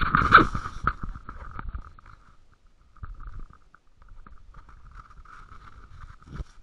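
Handling noise on the camera: close rubbing and knocking against its housing, loudest in the first second, then fainter scattered knocks and scraping.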